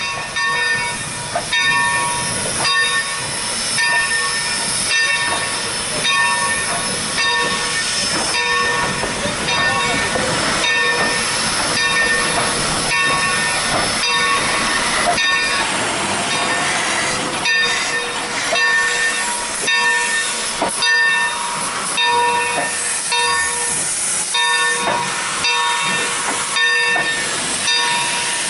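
Steam locomotive rolling by with its bell ringing about once a second over a steady hiss of steam.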